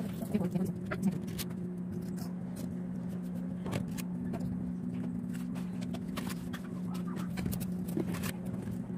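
Scallop half-shells set down one by one on a tray, making scattered light clicks and taps over a steady low hum.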